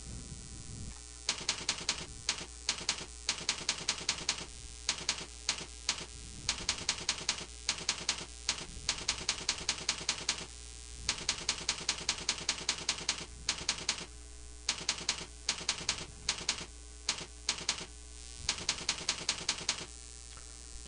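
Computer keyboard being typed on: runs of quick keystrokes starting about a second in, broken by short pauses, over a steady low electrical hum.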